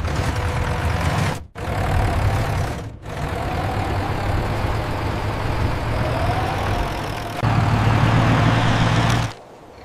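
Heavy truck engine running in a run of edited clips. It cuts out abruptly twice and comes back, then gets louder and deeper near the end before stopping short.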